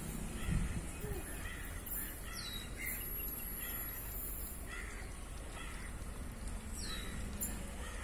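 Birds calling outdoors: a high chirp falling in pitch repeats every few seconds, with fainter chirps in between, over a steady low rumble of wind on the microphone. There is one low thump about half a second in.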